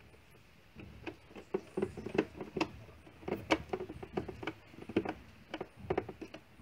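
Irregular clicks and knocks of hard plastic and metal parts being handled in a car's engine bay, with clips and fittings being worked by hand behind the air-cleaner housing.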